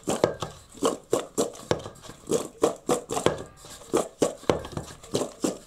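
Kitchen utensils knocking and clinking against a pot, about three or four sharp, irregular knocks a second, as salted young potatoes are mixed.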